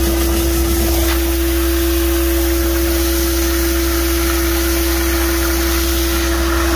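Concrete boom pump truck's engine and water pump running steadily with a constant droning note, under the hiss of a high-pressure water jet from a washout nozzle spraying the hopper grate.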